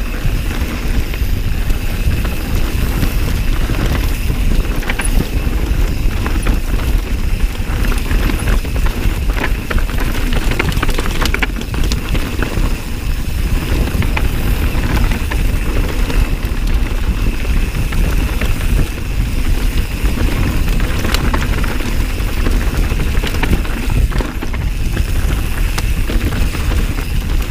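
Mountain bike riding down a dirt trail: a steady rumble of tyres and wind on the action camera's microphone, with frequent clicks and rattles from the bike over rough ground.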